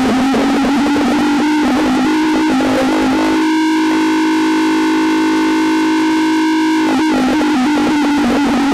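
A low siren tone, loud and rough with a hiss of noise over it. It creeps slowly up in pitch for the first couple of seconds, then holds steady, and the noise clears for a few seconds in the middle.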